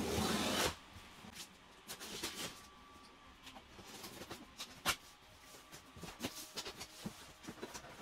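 A knife slitting the packing tape along a cardboard box's seam makes a short, loud, scratchy rasp of under a second. Scattered taps, clicks and rustles follow as the cardboard flaps are opened and the plastic wrapping inside is handled, with one sharper click about five seconds in.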